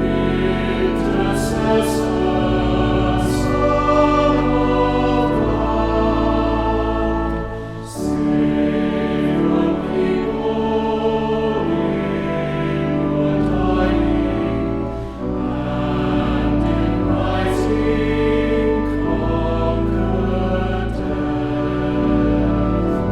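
Choir singing slow, held chords over sustained low bass notes, the chords changing every second or two.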